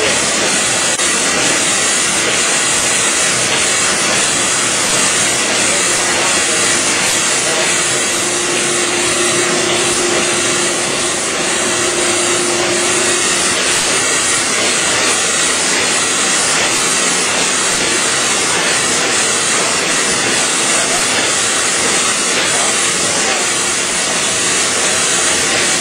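Kase Equipment nine-colour dry offset cup and pail printer running: a loud, steady mechanical din with a strong hiss. A faint steady hum comes in for about six seconds partway through.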